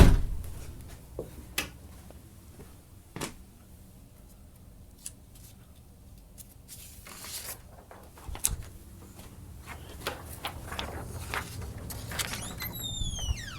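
Sparse knocks and clicks of objects being handled in a garage, with a sharp knock at the very start, a few single clicks, and busier rustling and clicking near the end.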